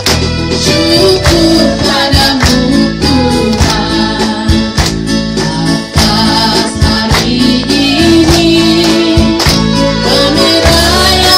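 A small choir singing a festive song in unison with instrumental accompaniment, and hands clapping along in time.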